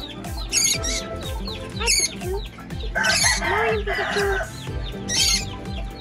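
Background music with a steady beat, with small pet parrots chirping over it. A longer, harsher squawk comes about three seconds in and lasts over a second.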